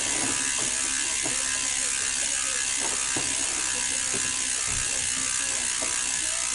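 Steady whirring hiss of a running machine, with a faint constant hum and a few light clicks.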